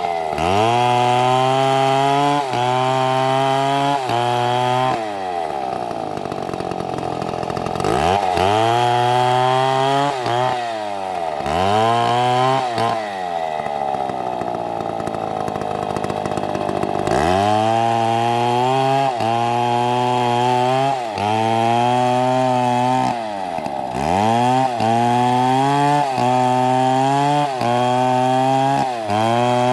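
STIHL chainsaw engine running at high revs in spells of a second or two, each broken by a brief drop as the throttle is eased and squeezed again. Twice the revs sink much lower for a few seconds and then climb back.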